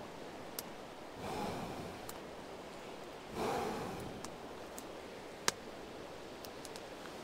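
Two long breaths blown onto campfire embers to coax them into flame, with a few faint sharp crackles in between.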